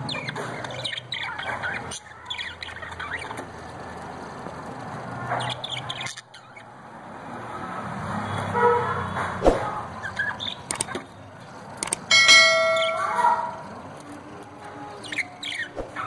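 Budgerigars chirping in short, scattered calls, with a louder held tone about twelve seconds in.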